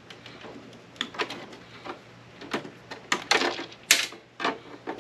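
Irregular sharp clicks, knocks and clatter of hard parts being handled and pulled loose while an APC battery backup unit is taken apart, with a louder burst of clatter about three to four seconds in.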